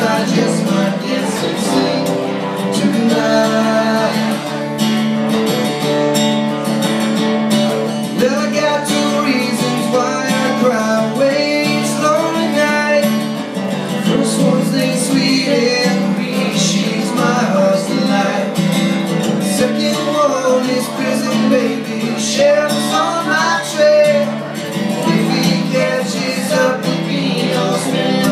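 Two acoustic guitars playing live: strummed chords with a picked melody line moving over them.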